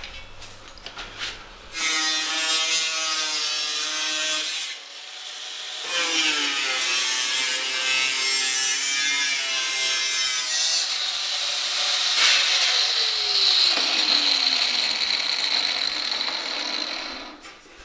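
Angle grinder cutting stainless steel sheet: a high whine over a dense hiss. It runs in two long stretches with a short break about five seconds in, and stops near the end.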